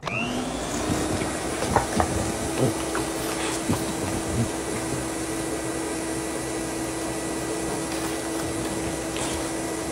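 An electric appliance motor starting up and then running steadily: a short rising whine as it comes up to speed, settling into a steady hum over a broad hiss, with a few faint knocks in the first seconds.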